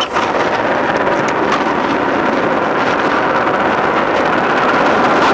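Chesapeake and Ohio 614, a 4-8-4 steam locomotive, approaching at speed, heard as a steady rushing noise with no separate exhaust beats, mixed with wind on the microphone.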